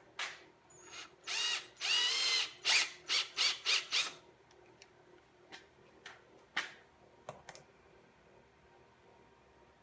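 A run of short whirring, ratcheting mechanical bursts for about four seconds, one of them longer with a wavering pitch, followed by a few light clicks.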